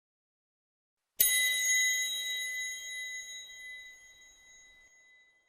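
Metal triangle struck once, about a second in, ringing on with a bright high shimmer that slowly dies away over about four seconds.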